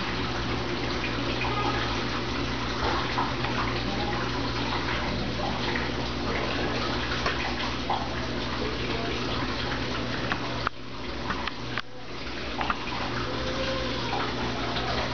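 Brastemp Ative 11 kg top-load washing machine working through its wash cycle: water splashing and churning in the tub over a steady low motor hum. The sound dips briefly twice, a little before two-thirds of the way in.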